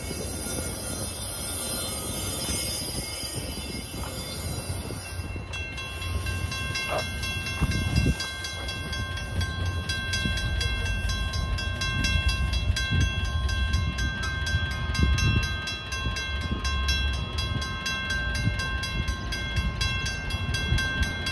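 Metra bilevel commuter train rolling past with a steady low rumble of wheels on rail, and a high wheel squeal for the first five seconds or so. About six seconds in, a steady high ringing with a regular beat starts and carries on over the rumble as the train pulls away.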